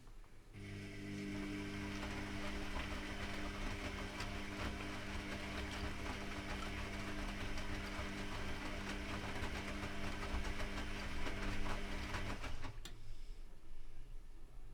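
Privileg Classic 30612 washing machine tumbling its drum during a 95° boil wash: the motor starts with a steady hum and the laundry and water churn for about twelve seconds, then the motor stops, as in a washer's turn-and-pause wash rhythm.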